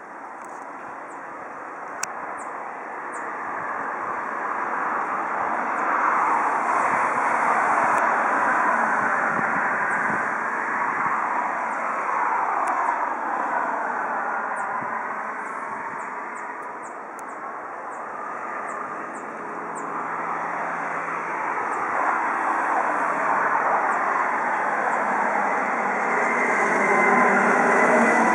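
Boeing 747-400 jet airliner on final approach, its four turbofan engines giving a steady jet rumble and whine that grows louder as it nears, with slow sweeping shifts in tone.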